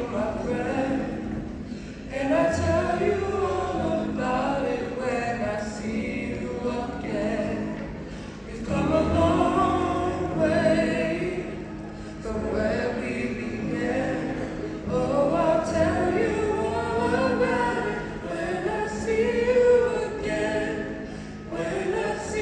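A small group of singers performing a song in harmony through microphones and the hall's sound system, in phrases with short breaks between them.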